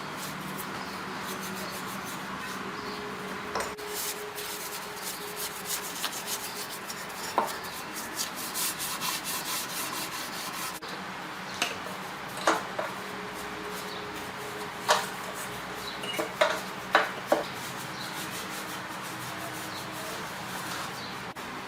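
Hand scrubbing or sanding on metal engine parts: a steady rough rubbing, broken by scattered sharp clinks and taps of metal, several close together in the second half.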